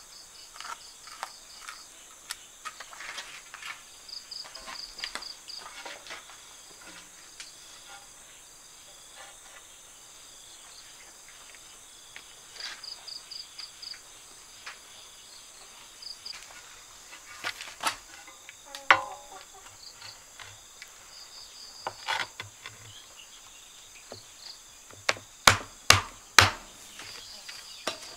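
A trowel scraping and patting wet cement. A large glossy tile is then set down on the cement bed and tapped into place, with a few sharp knocks near the end. Insects chirp in short repeated trills throughout.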